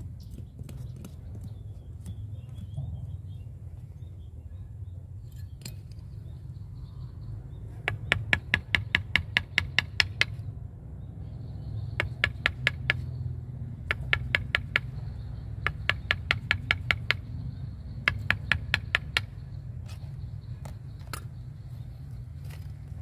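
Mallet striking a chisel into the wood at the base of a Wrightia religiosa bonsai trunk, in five quick runs of sharp taps about six a second, carving out the trunk base.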